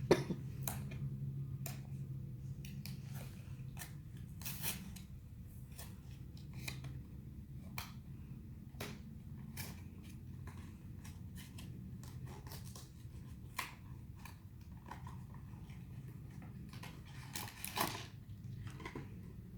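Scattered clicks, taps and rustles of a toy blind box's packaging being handled and opened by hand, over a steady low hum.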